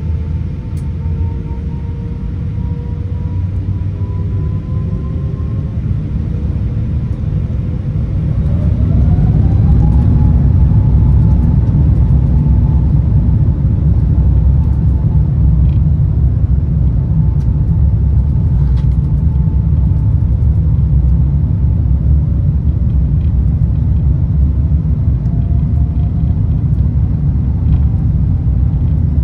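Airbus A350-900's Rolls-Royce Trent XWB engines heard from inside the cabin over the wing: a steady low rumble, then about eight seconds in the engine whine rises in pitch and the noise grows louder as the engines spool up to takeoff thrust. After that it holds a loud, steady rumble with a whine through the takeoff roll.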